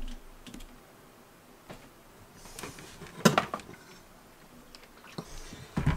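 Handling clatter as a plastic battery chemical sprayer is taken down from its wall hook: a few light clicks and one sharp knock about three seconds in.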